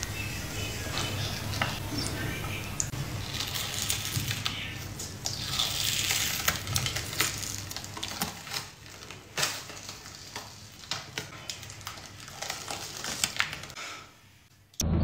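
A clear film peeled slowly off skin, making a sticky crackling with many small clicks and snaps as it pulls away. It dies away shortly before the end.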